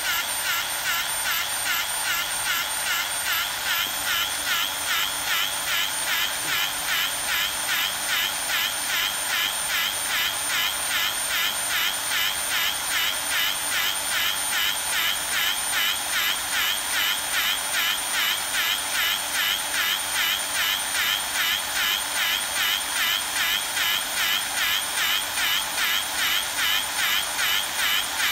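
C-frame pipe bevelling machine running on a tube end, its electric drill-type motor turning the cutter head. It makes a steady high whine that wavers evenly.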